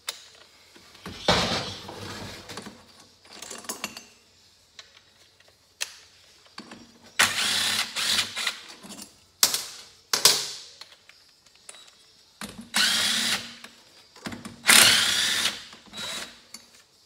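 Cordless DeWalt drill-driver spinning out the loosened Allen bolts from a Honda TRX300 cylinder head, in several short runs of about a second each. Light clinks of bolts and tools come between the runs.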